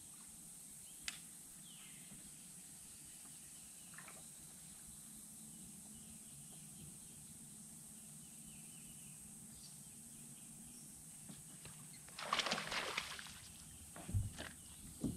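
Quiet lake ambience with a faint steady hum, broken about twelve seconds in by a short water splash lasting about a second, then a few low thumps on the boat deck as the angler moves.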